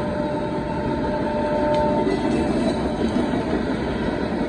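Loaded gravel hopper cars of a freight train rolling past, with a steady rumble of wheels on rail. A steady two-note high tone sounds over it and stops about two seconds in.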